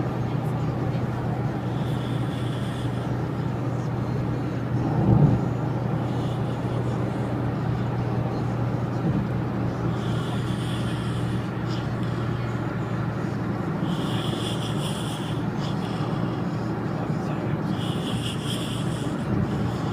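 A man snoring, with a rasping breath roughly every four seconds, over the steady drone of a vehicle's engine and road noise. A brief louder low sound comes about five seconds in.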